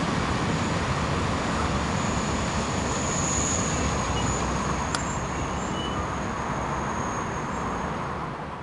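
Freight train's last open wagons rolling away over steady road traffic noise, with a thin high-pitched squeal running through most of it. One sharp click about five seconds in; the sound fades out at the end.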